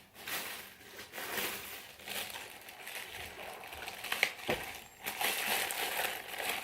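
Rustling and crinkling as lemons are handled and laid out on a surface, with a soft thump about four and a half seconds in.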